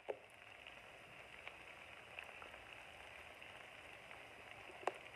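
Faint, steady sizzling of a cabbage and turkey bacon stir fry cooking in a frying pan, with scattered small crackles and a sharper click near the start and again just before the end.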